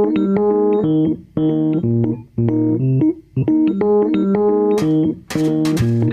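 Studio logo jingle: keyboard chords played in short phrases with brief gaps between them, with quick cymbal-like ticks joining about five seconds in.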